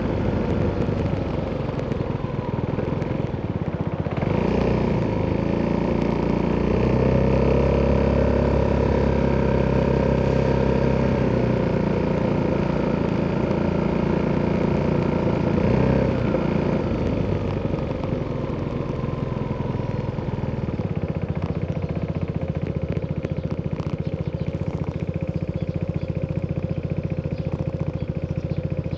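Exhaust of an Italjet Dragster 200 scooter's single-cylinder four-stroke DOHC engine through an Akrapovič exhaust, under way. Its pitch rises a few seconds in and holds steady, then drops away about halfway through and settles to a low steady note.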